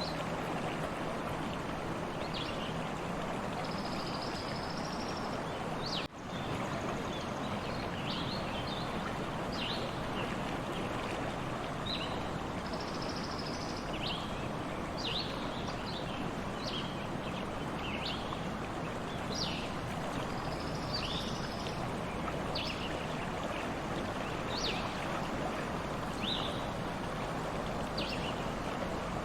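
A stream running steadily, with small birds giving short, quick chirps over it every second or so and an occasional longer warble. About six seconds in, the sound briefly drops out.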